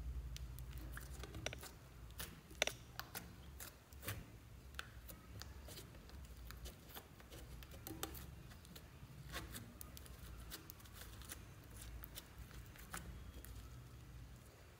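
Soft slime being pressed, poked and stretched by fingers, giving irregular sticky clicks and small pops over a low steady hum.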